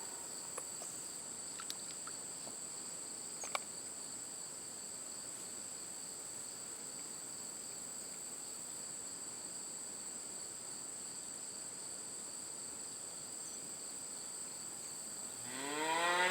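A steady high-pitched insect chorus that drones on without a break, with light clicks in the first few seconds. Near the end a cow starts to moo.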